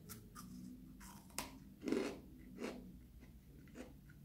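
Soft, irregular crunching as freeze-dried peach pieces are bitten and chewed, crisp at first and turning sticky as the fruit softens; the loudest crunch comes about two seconds in.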